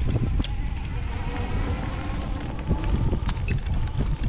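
Wind buffeting the microphone of a camera riding on an electric off-road bike along a rough dirt trail, with a dense low rumble and scattered knocks from the bike going over the ground. A faint steady whine sits under it through the middle.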